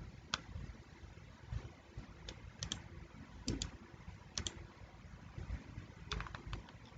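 Scattered clicks of computer keys, some in quick pairs, with a short run of clicks near the end, over a quiet room.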